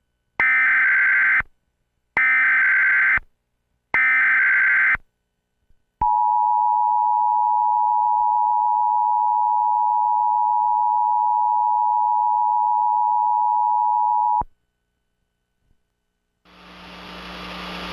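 Emergency Alert System tones announcing a tornado warning: three bursts of SAME header data, about a second each, then the two-tone attention signal held steady for about eight seconds and cut off sharply. Near the end a noisy buzz starts and grows louder.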